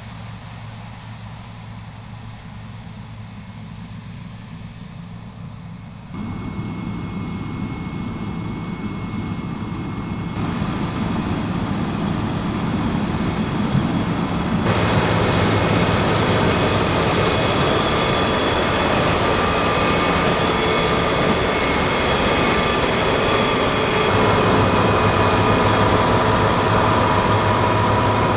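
Claas Lexion 6800 combine harvester with its six-cylinder Mercedes engine running under load while cutting wheat: a steady engine drone with a high whine from the threshing and drive machinery. It grows louder in sudden steps and is loudest from about halfway on.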